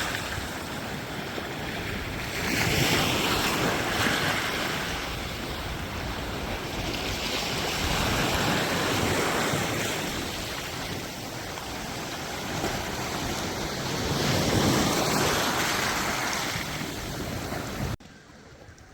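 Sea surf washing in and drawing back, swelling three times, with wind rumbling on the microphone. The sound cuts off abruptly near the end.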